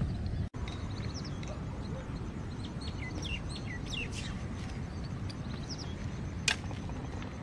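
Small birds chirping in quick short calls over a steady low background rumble, with one sharp click about six and a half seconds in.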